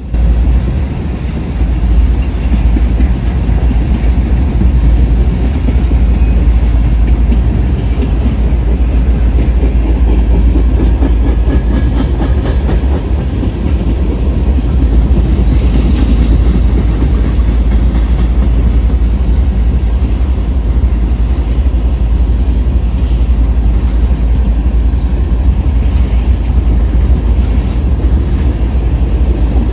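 Freight train of ethanol tank cars rolling past at a grade crossing: a steady, loud rumble of wheels on rail with occasional clicks over the joints.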